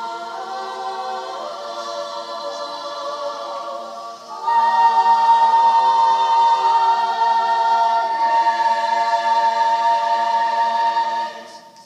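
Women's choir singing held chords, growing much louder about four and a half seconds in and ending on a long sustained chord that cuts off just before the end.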